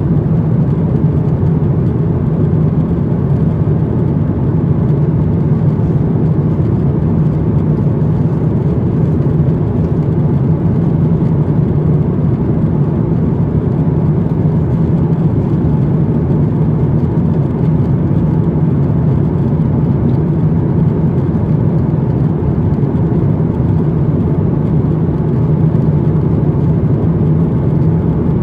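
Steady cabin noise inside an Airbus A350-900 in flight: a low drone of airflow and Rolls-Royce Trent XWB engines heard through the fuselage, with no change in pitch or level.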